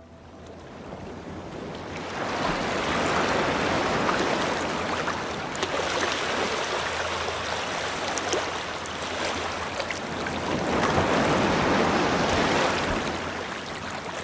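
Ocean waves rushing and breaking, swelling up about two seconds in and again around ten seconds in.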